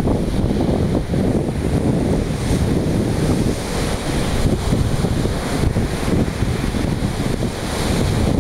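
Wind buffeting the microphone, with sea waves washing in behind it; the hiss of the surf swells up a few times.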